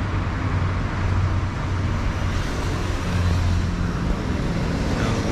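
Steady motor-vehicle noise: a low engine hum under a wash of road-traffic noise, with no sudden events.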